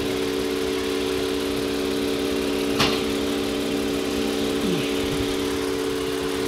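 Toyota Avalon V6 engine idling with a steady hum, with one sharp click about three seconds in. The engine has a misfire on cylinder number 2, and pulling that cylinder's ignition coil leaves the idle unchanged, the sign that the cylinder is not firing.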